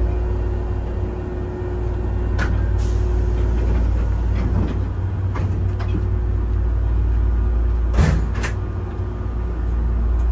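Steady low hum inside the driver's cab of a stopped Nishitetsu electric train, with a faint steady tone for the first few seconds. Scattered clicks and knocks from the cab, the loudest about eight seconds in.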